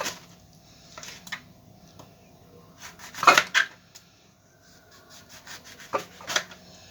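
Knife cutting into a lemon and picking out its seeds: scattered small taps and scrapes, with one louder knock about three seconds in and two more near the end.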